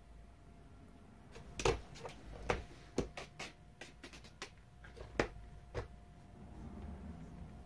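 A cat digging hard at the bottom of a closed wooden door, her claws scratching and knocking in irregular strokes, the loudest about a second and a half in, then stopping about six seconds in. She is trying to dig her way out under the door.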